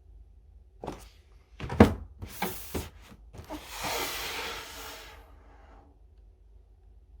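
Hands handling a sneaker box and its paper during an unboxing: a couple of sharp knocks, the second one loudest, then a scraping rustle of about two seconds that fades out.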